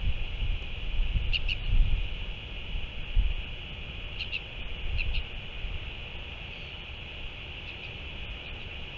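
Wind gusting on the microphone with a low rumble that eases after the first few seconds, under a steady high hiss. A bird gives a few short high chirps: a pair about a second and a half in, then three or four more around four to five seconds in.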